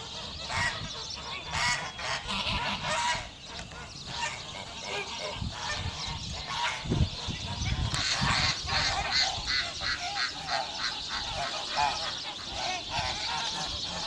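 A flock of domestic geese honking, many short calls overlapping, busier and louder from about halfway through.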